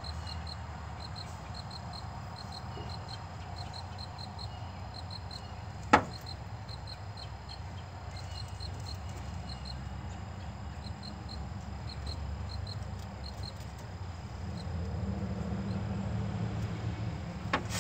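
Faint high chirping, evenly repeated in short runs, over a low rumble that swells near the end. A single sharp click about six seconds in.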